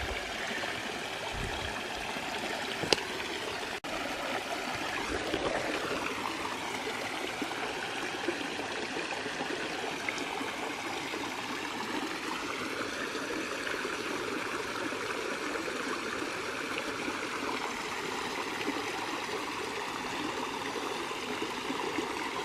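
A small creek cascade: water spilling and rushing steadily over rock. There is a single brief click about three seconds in.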